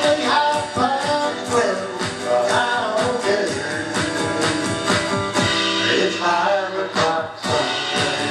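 Band music without vocals: strummed guitar over an electronic drum kit keeping a steady beat.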